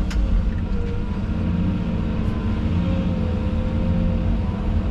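Excavator's diesel engine running steadily under working load, with a single sharp click right at the start.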